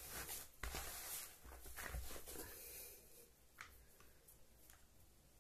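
Hands kneading and pressing a moist homemade fish-bait dough in a plastic basin: faint squishing and rustling with a few soft knocks, dying away after about three seconds.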